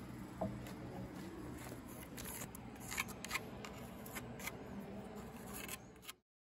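Pencil scratching and small clicks as a line is marked on a dried coconut shell and bamboo workpiece, over a faint low hum, with a couple of sharper ticks about halfway through. The sound cuts off abruptly near the end.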